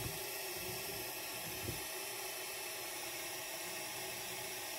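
Steady hiss of a gas soldering torch flame, heating a silver ring shank so the solder flows into a casting void.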